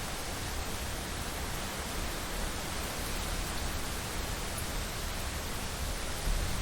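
Rainstorm with wind: a steady hiss of rain, with an uneven low rumble underneath.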